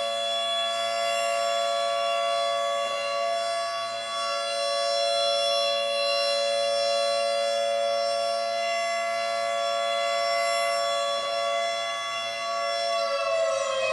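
Alternate Canadian emergency alert (EAS) alarm tone: a siren-like sound of two tones held together, steady for most of its length, beginning to slide down in pitch near the end.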